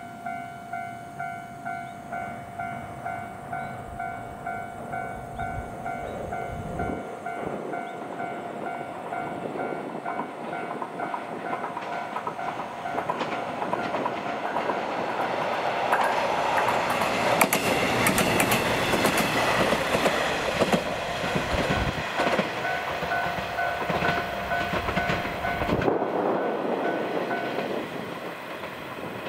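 JR West KiHa 120 two-car diesel railcar approaching and passing, its engine and wheels building to a peak about two-thirds of the way through, with clicks over the rail joints. A level-crossing alarm rings at about two strikes a second and stops shortly before the end.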